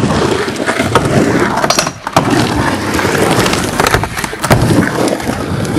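Skateboard rolling on a mini ramp, a steady rumble of the wheels broken by several sharp clacks of the board.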